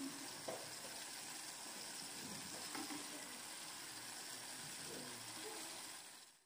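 Hot oil sizzling steadily in a frying pan around ground-beef and cabbage patties, fading out near the end.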